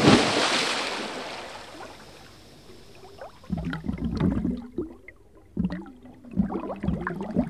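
A rush of wind noise fades away over the first two seconds, then water gurgles and bubbles in irregular bursts.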